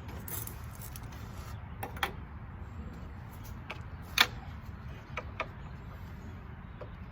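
A few scattered sharp clicks and knocks of things being handled, the loudest about four seconds in, over a low steady hum.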